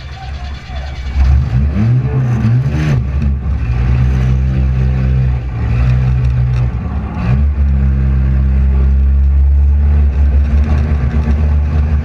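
A front-wheel-drive demolition derby car's engine revving hard, its pitch rising and falling a couple of times between steadier stretches of high revs.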